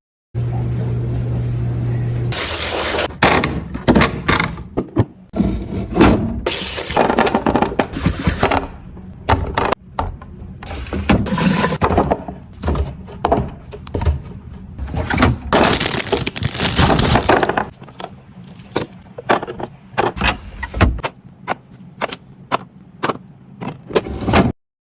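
Food packaging and containers being handled and stacked: a busy run of clicks, clatters, rustles and scrapes of plastic and glass, with a steady hum in the first two seconds.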